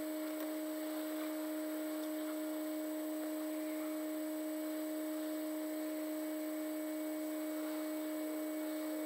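Steady hum: one low, unchanging tone with a second tone an octave above it, over a faint hiss.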